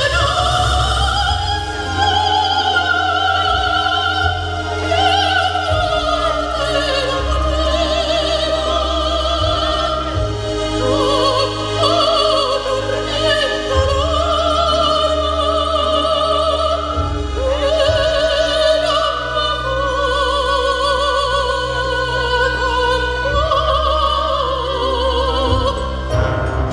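A woman singing a Neapolitan song in an operatic style, holding long notes with a wide vibrato, over an instrumental accompaniment with a sustained low bass.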